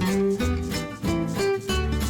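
Background music with plucked acoustic guitar and a steady beat.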